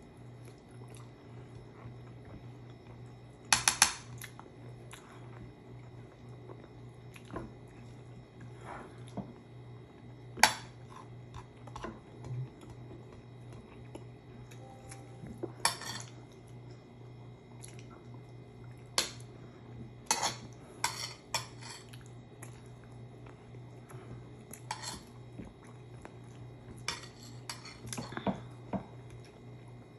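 Spoons clinking and scraping against ceramic bowls and plates as people eat, in short irregular clinks every few seconds, with a cluster of several from about two-thirds of the way through.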